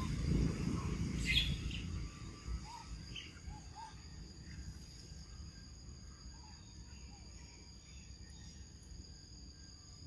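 Outdoor forest ambience: a steady high-pitched insect drone, with a few faint short chirps scattered through it. A low rumble over the first two seconds, with a sharp click about a second in, then eases off.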